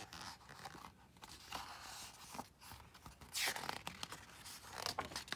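Paper pages of a picture book rustling as they are handled and turned by hand, with one louder sweep of a page about three and a half seconds in.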